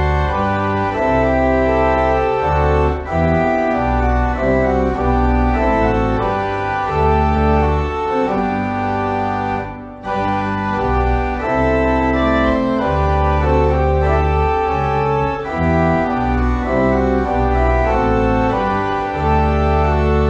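Church pipe organ playing slow sustained chords over deep pedal bass notes, with a short break between phrases about ten seconds in.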